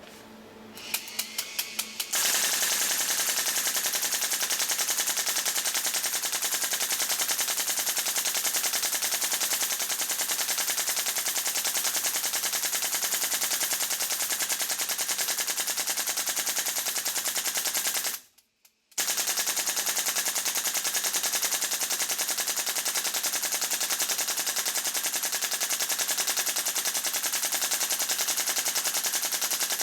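HPA-powered airsoft AR15 pistol firing on full auto. A few quick separate shots come first, then a long unbroken stream of rapid fire, fed constantly from an electric drum magazine. The stream stops for under a second about eighteen seconds in, then carries on.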